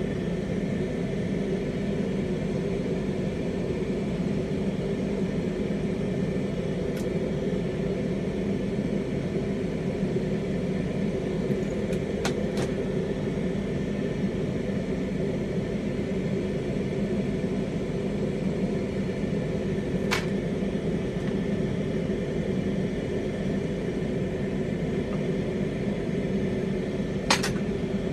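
Glassworking bench torch burning steadily with a low, even rushing sound while clear borosilicate glass is heated in its flame. A few short clicks break in, the loudest near the end.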